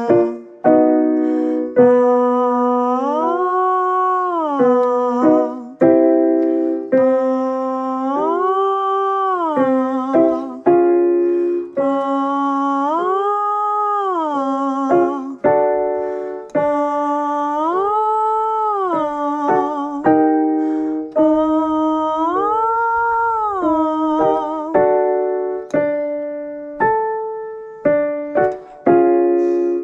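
A voice sliding smoothly up and back down on an open 'ah' five times, each slide set up by piano chords: the sliding-ah vocal warm-up exercise. Near the end the piano plays a run of short notes.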